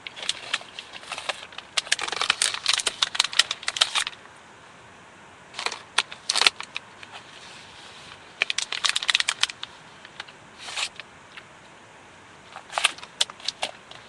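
Several bursts of rustling and crackling, dense runs of sharp clicks a second or so long, with a faint hiss between them.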